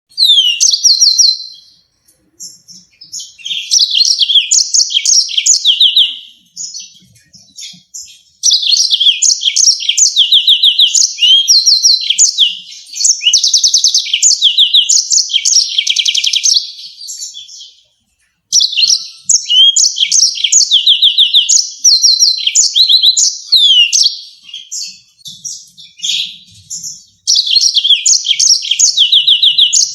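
Yellow-fronted canary singing loudly in long phrases of fast, high trills and sharp chirps, with brief pauses of a second or two between phrases.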